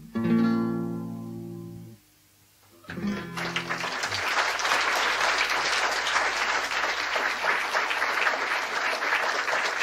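Acoustic guitar's final strummed chord rings out and fades, then after a short silence a last low note sounds. Audience applause breaks out at about three seconds in and carries on steadily.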